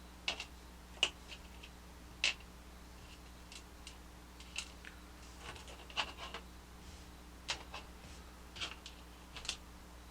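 Small plastic toy parts being handled, clicking and tapping against each other and the table: about a dozen sharp clicks at irregular intervals. A steady low hum runs underneath.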